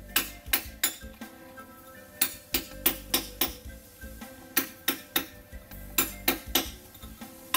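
Steel hammer striking a chisel held against the edge of a stone slab to dress or split it. The sharp metallic clinks come in quick bunches of three or four, with short pauses between.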